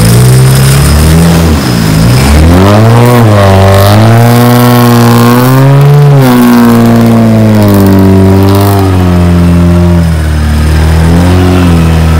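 Off-road 4x4 engine revving hard under load, its pitch rising and falling again and again.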